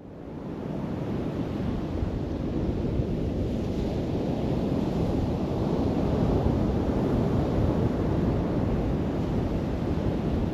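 Ocean waves breaking and washing in, recorded through a GoPro HERO 13's microphone with a windscreen: a steady, dense wash of surf heavy in the low end, with wind rumbling on the microphone.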